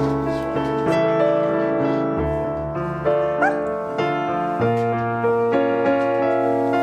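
Background piano music with slow, sustained chords. About three and a half seconds in comes a short rising whine from a Border Collie.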